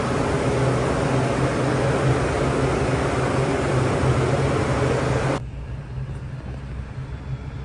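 Steady hum and hiss of machinery at a CNG filling pump while a car is being filled with natural gas. About five seconds in, it drops suddenly to a quieter, muffled background heard from inside the car's cabin.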